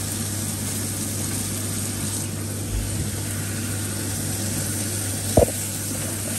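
Steaks sizzling in a frying pan on a lit gas hob, over a steady low hum. A knife or tongs knock against the pan once, about five seconds in.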